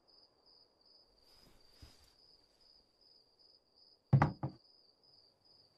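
Faint crickets trilling steadily. About four seconds in, a tray with a bowl is set down on a table with two quick knocks.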